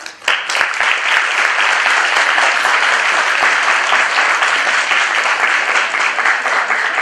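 Audience applauding, starting about a third of a second in and holding steady.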